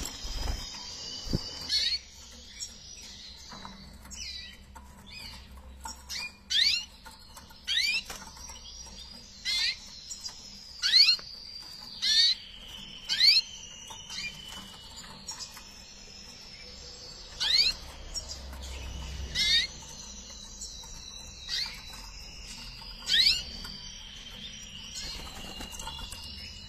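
Red mosaic canary hens calling: short, sharp chirps that sweep steeply down in pitch, repeated at irregular intervals of one to a few seconds, over a steady high-pitched background trill and some wing flutter.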